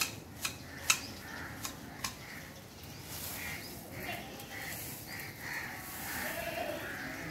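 Hand hedge shears snipping through leafy shrub branches, five sharp snips in the first two seconds, the loudest about a second in. After that come repeated animal calls.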